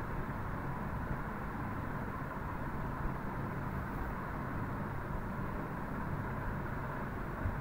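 Steady background noise with no speech, heaviest in the low end and even throughout.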